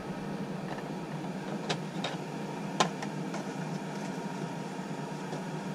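Steady low hum inside a semi-truck sleeper cab, with a few light clicks and knocks from objects being handled about two to three seconds in.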